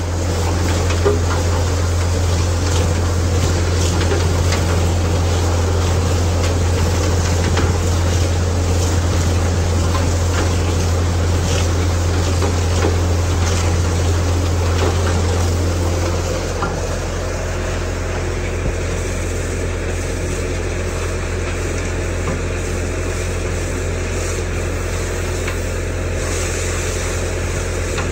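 High-pressure water jet hissing as it blasts the inside of a steel vacuum truck tank, over a steady low machine drone. The sound drops a little in level about two-thirds of the way through.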